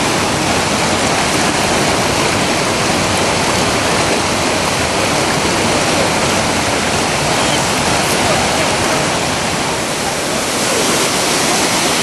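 The Probiy waterfall on the Prut river: white water pouring over rock ledges in a loud, steady rush.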